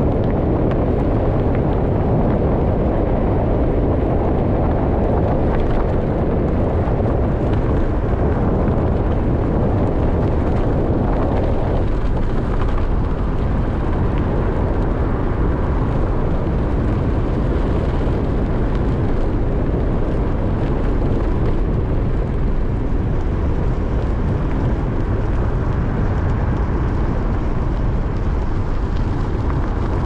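Steady wind rumble buffeting the microphone of a camera mounted outside a moving vehicle, mixed with the vehicle's road noise on a dirt and gravel road. The rumble eases slightly about twelve seconds in.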